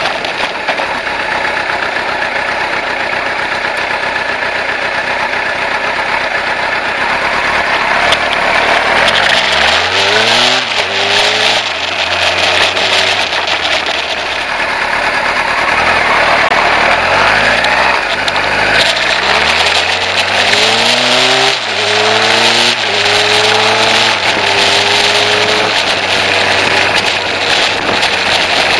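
Kawasaki ZZ-R1100's inline-four engine heard from the bike while riding, with wind rushing over the microphone. Twice, about a third of the way in and again past the middle, it accelerates, climbing in pitch through a few quick upshifts.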